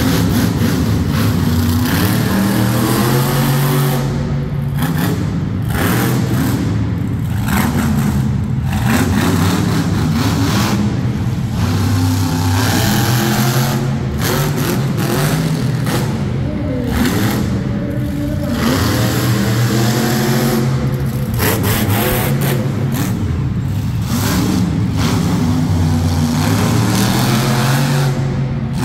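Monster truck engine revving hard, its pitch climbing and dropping again and again every few seconds as the throttle is opened and lifted.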